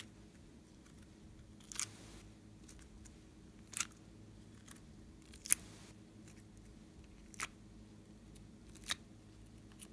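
Sparse light clicks and taps as a plastic compartment tray of slime pieces is handled and the pieces are set down in a glass box, about six in all, every one and a half to two seconds, the one midway the sharpest.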